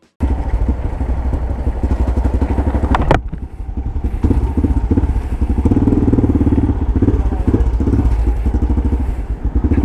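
Yamaha XT600E's single-cylinder four-stroke engine running loud through an old Coyote aftermarket exhaust, a throbbing engine note that cuts in suddenly at the start. A sharp knock about three seconds in, then the engine note dips briefly and picks up again.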